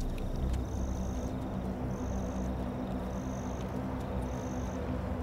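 Night insects chirping in regular high pulses, about one a second, with a second insect trilling steadily beneath them, over a low steady rumble.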